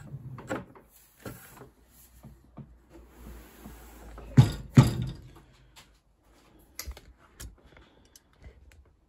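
Hotpoint 1012 spin dryer being tipped over and handled: scattered knocks and clicks, with two heavy thumps in quick succession about halfway through.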